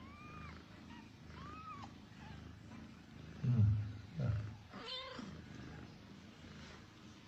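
Nursing mother cat purring steadily while her young kittens give small, faint high mews. About three and a half seconds in come two louder, low cat calls, then another mew about a second later.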